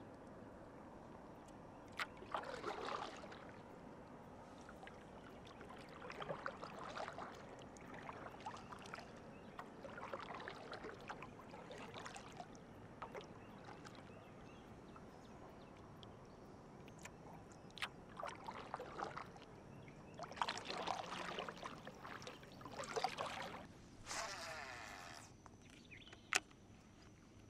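Kayak paddle strokes: the blades dipping into the water, with soft splashing and dripping in bursts every couple of seconds and a few light knocks.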